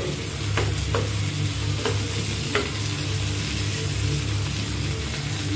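Onions, garlic and tomatoes sizzling in oil in a nonstick frying pan as they are stirred, with the utensil knocking against the pan about four times in the first three seconds.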